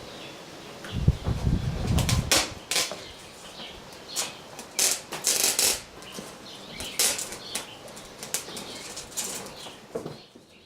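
Window screen mesh rustling and crackling, with a few low knocks of the frame, as new rubber spline is pressed into the frame's groove with a screen roller.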